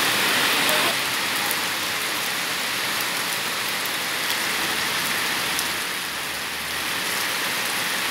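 Steady heavy rain falling on a wet paved street: a dense, even hiss of drops with scattered little ticks of individual drops.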